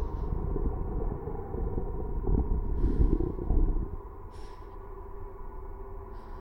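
Horror soundtrack: a deep, loud rumbling over a steady droning tone, which drops away sharply about four seconds in, leaving the quieter drone. A few short breathy sounds, like shaky breaths or sobs, come through it.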